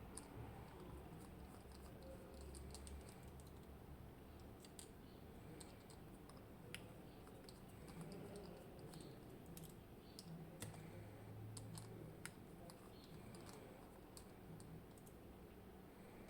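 Faint, irregular light clicks and ticks of small metal parts and tools being handled while a Medeco M4 lock cylinder is taken apart.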